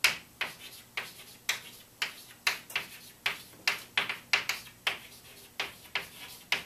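Chalk tapping and scratching on a blackboard as words are written: an uneven run of short, sharp clicks, about three a second.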